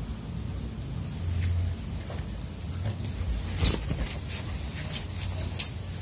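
Caged sunbirds calling and flitting about: a faint thin high whistle about a second in, then two short, sharp, high-pitched chirps about two seconds apart, with light wing flutter between perches.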